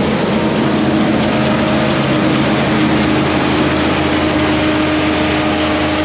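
Combine harvester running steadily while cutting wheat: a constant engine and machine drone with a steady hum.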